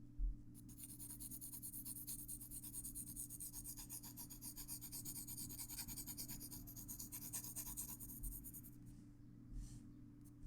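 Graphite pencil scratching on paper in quick, closely spaced back-and-forth strokes, starting about half a second in and stopping shortly before the end.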